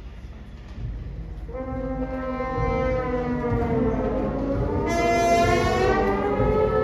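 Symphonic band swelling: over a low rumble, sustained brass and woodwind tones enter about a second and a half in and grow steadily louder, with a brighter, higher layer joining about five seconds in.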